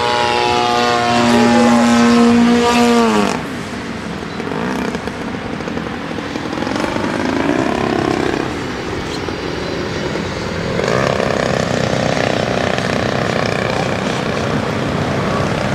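An RC model airplane's engine passing by in flight. Its steady note drops sharply in pitch about three seconds in as the plane goes past, then carries on as a rougher, more distant engine noise that swells again near the end.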